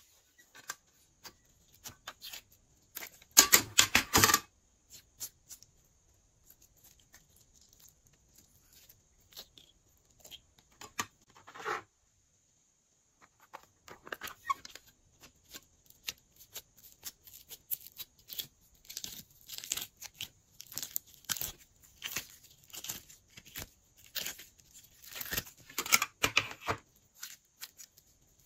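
Glossy slime being mixed and squished: irregular bursts of sticky crackling and popping clicks, loudest about three to four seconds in and again near the end, with a brief quiet spell partway through.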